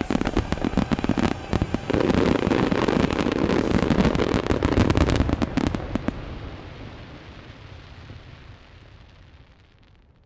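Aerial firework shells bursting in a rapid, dense barrage: the final volley of the display. The bangs stop about six seconds in, and the sound then dies away gradually.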